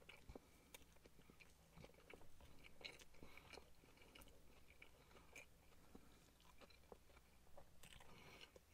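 Faint chewing of a mouthful of burger, with small wet mouth clicks scattered at an uneven pace.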